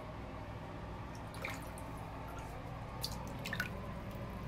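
Water in a filled bathtub sloshing and dripping as a hand and foot stir it, with a few small drips about a second and a half in and again around three seconds in, over a faint steady low hum.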